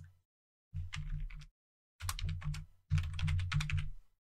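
Computer keyboard typing in four short bursts of quick keystrokes, separated by brief silent gaps: the Backspace key deleting an old name and a new short name being typed in.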